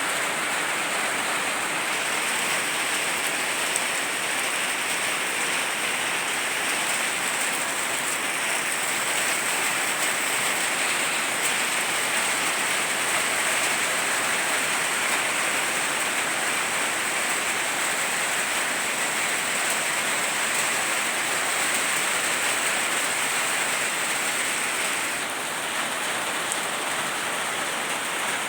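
Steady rain falling and pattering on surfaces, a continuous even hiss with no breaks.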